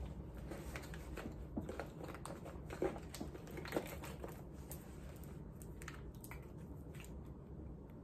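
Faint close handling noises: scattered small clicks and taps over a low hum, with two sharper clicks about three and four seconds in.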